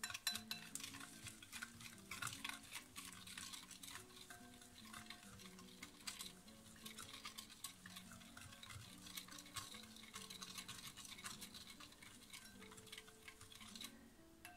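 A spoon stirring an oil-and-spice marinade in a glass bowl, making a quick run of light clicks and scrapes against the glass that stops shortly before the end. Soft background music plays underneath.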